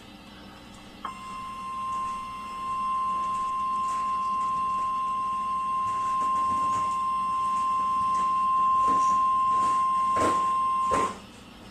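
NOAA Weather Radio warning alarm tone: one steady 1050 Hz tone that starts about a second in and holds for about ten seconds before cutting off, with a few crackles of static near its end. The tone announces that a warning-level alert message is about to be broadcast.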